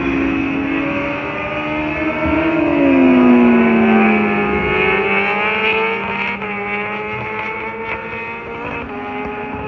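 Several motors running at once at different pitches, their whine gliding up and down; one falls smoothly in pitch about two and a half seconds in.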